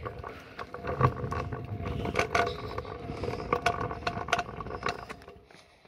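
Skateboard wheels rolling over rough pavement and asphalt: a steady rolling rumble with scattered sharp clicks, fading out near the end.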